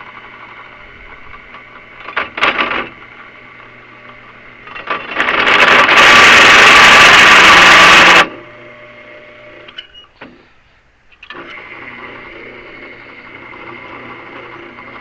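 Belt-driven drill press running with a steady hum, its new 5/8-inch drill bit biting into metal. About five seconds in there is a loud cutting noise lasting around three seconds, which stops sharply; the motor keeps running after it.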